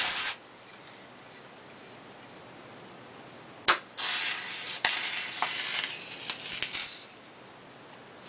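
CO2 cartridge inflator hissing as it fills a bicycle inner tube. A short hiss comes right at the start; then, after a sharp click, a steady hiss with a few small clicks runs for about three seconds and stops.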